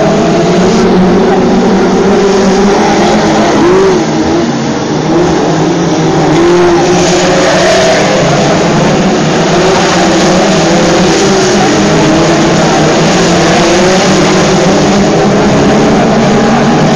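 A pack of BriSCA F2 stock cars racing round the oval. Several engines run hard at once, loud, their pitches rising and falling as the cars accelerate and ease off through the bends.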